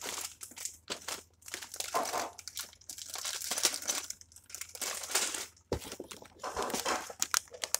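Clear plastic bags of Lego pieces crinkling in irregular bursts as hands rummage through the opened box.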